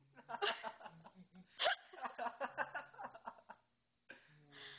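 People laughing and giggling in short bursts, with one short, sharp gasp-like vocal burst about a second and a half in. Near the end there is a quieter breathy hiss.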